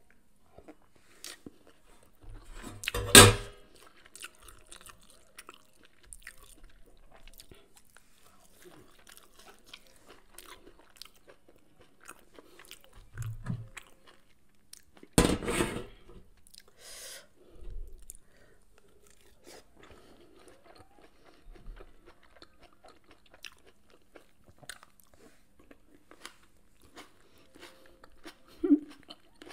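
Close-up chewing and mouth sounds of a person eating fried fish and fried eggplant, with small clicks and smacks throughout. Two much louder sharp clatters stand out, about three seconds in and about fifteen seconds in.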